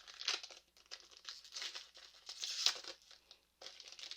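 Foil wrapper of a Pokémon trading card booster pack crinkling and tearing as it is opened by hand, in a series of short rustles, the loudest a little over two and a half seconds in.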